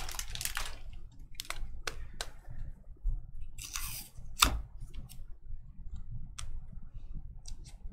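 Baseball cards being sorted by hand: a run of separate light clicks and snaps as cards are flicked and squared against one another, with a brief swish about four seconds in. Foil pack wrappers crinkle for a moment at the very start.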